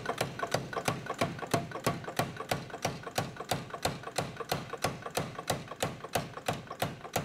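Big Blu Max 110 air power hammer striking hot steel in rapid, even blows, about four a second, as the fuller is set into a chopper blade.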